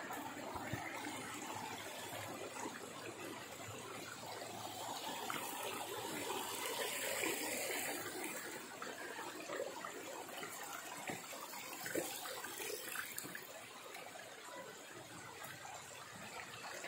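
Natural mountain water running in a steady trickling flow, with a few faint knocks.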